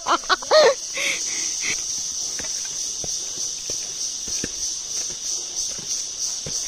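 Steady high-pitched insect chorus of forest crickets or cicadas, with footsteps on stone steps.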